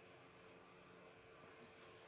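Near silence: a faint, steady background hiss with a low hum.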